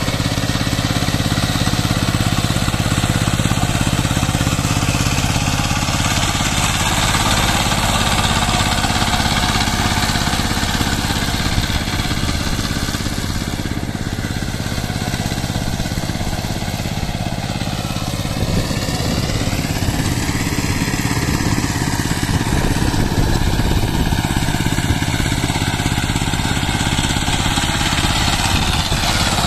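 Power tiller's single-cylinder diesel engine running steadily while it drives a rotavator through wet paddy mud. About two-thirds of the way through, the engine note rises and then falls back.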